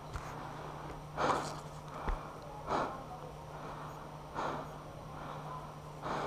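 A mountain biker breathing hard close to the microphone, one loud breath about every second and a half, over a steady low hum.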